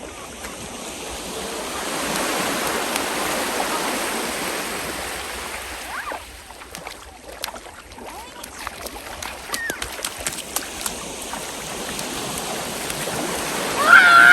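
Small waves breaking and washing up a sandy beach, a rush of surf that swells and then eases. A child's high-pitched call comes in at the very end.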